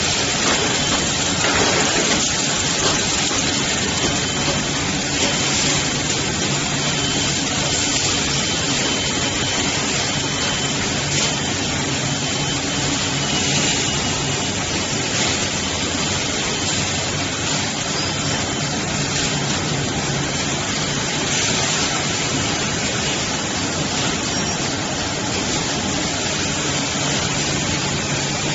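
Automatic toilet-paper and kitchen-towel roll packaging machine running: a dense, steady machine noise with a faint high whine and occasional short clicks.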